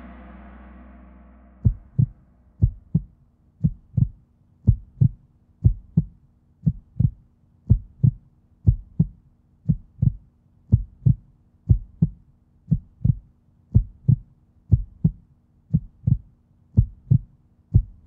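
Heartbeat sound effect: a steady double thump, lub-dub, about once a second over a low steady hum, starting about two seconds in as a musical note fades out, and cutting off abruptly at the end.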